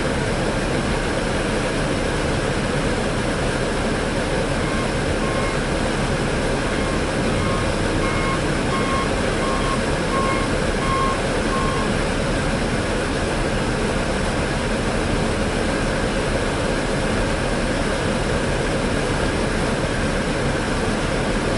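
Heavy snow-removal machinery (dump trucks and a front loader) running steadily, with a backup alarm beeping in an even series from about five seconds in until about twelve seconds in.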